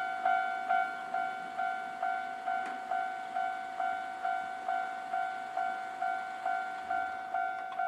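Japanese railway level-crossing warning bell ringing with its repeated electronic ding, about two strikes a second, the crossing's signal that a train is approaching and the crossing is closed.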